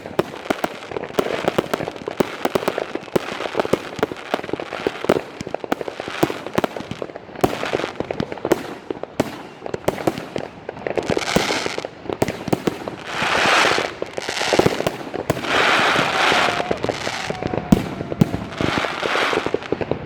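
Consumer fireworks cakes firing a rapid barrage: many sharp shots and bangs in quick succession, with three loud crackling, hissing swells in the second half.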